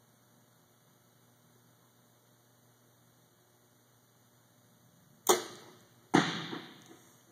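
Compound bow shot, with only a faint steady hum while the bow is held at full draw. About five seconds in comes the sharp snap of the string on release, and a bit under a second later a second sharp hit, the arrow striking downrange. Both ring on with a long echo through a large warehouse.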